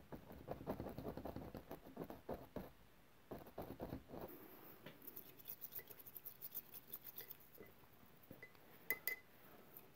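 Oil-paint brush dabbing against a stretched canvas in quick, faint taps. The taps are dense through the first few seconds, then thin out to scattered light ticks.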